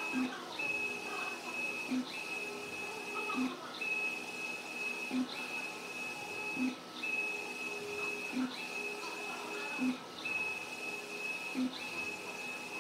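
Large-format flex banner printer printing: its print-head carriage runs back and forth with a steady high whine. The whine breaks off with a short knock about every 1.6 seconds as the carriage turns at the end of each pass.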